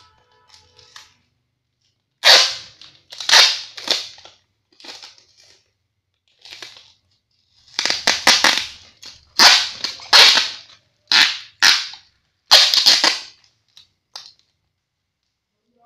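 Packing tape being pulled off the roll in a series of short, loud rips, with pauses between them, while a parcel is taped up.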